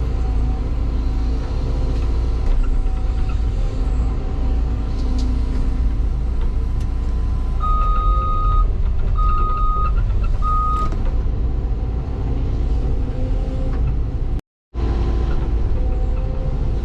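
Cat 316 hydraulic excavator's diesel engine running steadily while digging. Three short electronic beeps sound at the same pitch about eight to eleven seconds in. Near the end the sound drops out completely for a fraction of a second.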